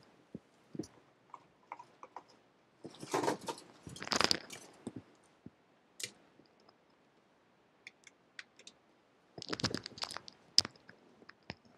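Handling noise from someone fetching and plugging in a HackRF software-defined radio and its USB cable. Rustling and clicks come in two bursts, about three seconds in and again near ten seconds, with scattered single clicks between.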